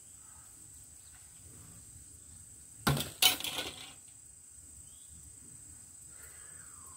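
A sharp clatter about three seconds in, then a louder, longer rattling crash of hard debris being handled or tossed aside. Insects drone steadily at a high pitch throughout.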